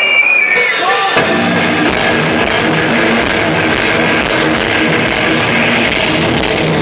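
Death metal band playing live: distorted electric guitars and drums start about a second in after the crowd's shouting and then play on in a dense, loud wall of sound, recorded with poor, muddy audience-taped quality.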